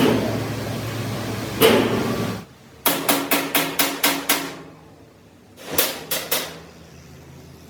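Hammer blows on sheet steel: a quick run of about eight ringing strikes, then three more a little later. Before them, a couple of seconds of steady workshop machine noise with a low hum, ending with a single knock.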